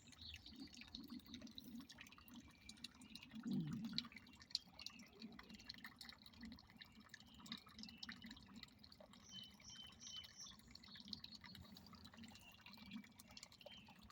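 Pond water faintly trickling and dripping, an irregular patter with one brief louder burst about three and a half seconds in.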